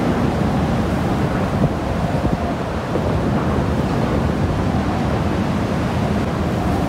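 Near-hurricane-force wind gusts blowing hard and buffeting the microphone: a loud, dense low rush that swells and eases without letting up.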